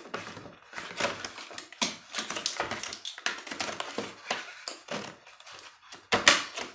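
Clear plastic clamshell blister pack being pried open by hand: a run of crackles and clicks, with a louder crack about six seconds in.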